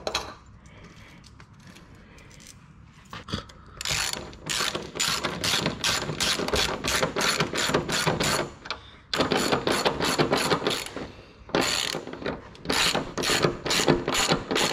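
Hand socket ratchet clicking as it tightens the bolts of a caster-kit saddle under a car. It comes in three runs of quick strokes, about four clicks a second, starting about four seconds in.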